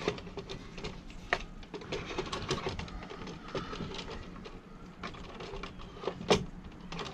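Plastic parts of a car vacuum being handled and fitted back into the housing: scattered light clicks and rattles, with a sharper click about a second in and another near the end.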